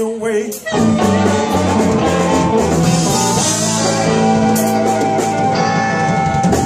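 Live blues band playing electric guitar, drums and harmonica through a small tube amp. About a second in it settles into a long, held chord with cymbals washing over it, which sounds like the end of the song.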